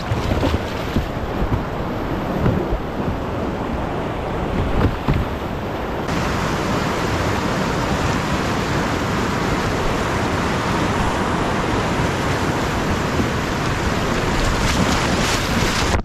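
Whitewater rapid rushing and churning, a steady dense noise of fast river water; the hiss of it grows louder about six seconds in.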